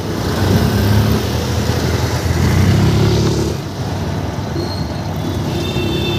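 Street traffic with a motor vehicle engine running, a deep rumble strongest in the first half; a vehicle horn sounds near the end.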